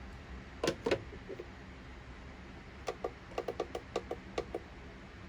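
Hard objects being handled on a workbench: two sharp knocks close together about a second in, then a quick run of about ten light clicks and taps.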